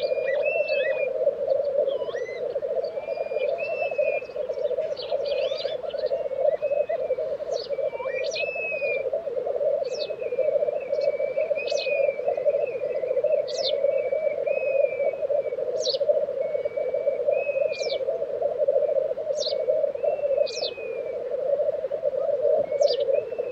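Black grouse lek: a continuous bubbling, rolling chorus of displaying blackcock. Above it run higher calls and short sharp notes that repeat every second or two.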